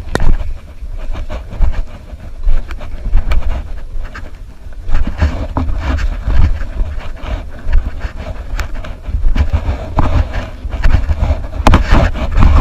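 Handling noise on a GoPro action camera's microphone: a loud, uneven low rumble with many clicks and knocks as the camera is jostled over cave rock.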